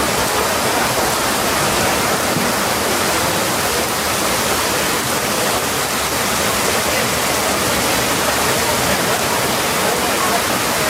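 Steady rush of water, like a waterfall, with faint voices underneath.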